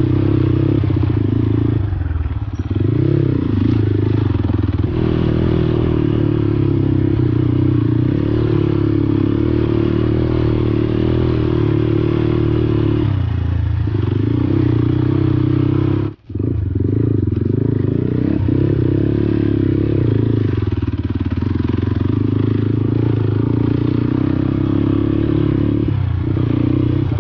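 Motorcycle engine running steadily under way. Its pitch dips briefly a few times as the throttle eases. The sound cuts out for a split second about sixteen seconds in.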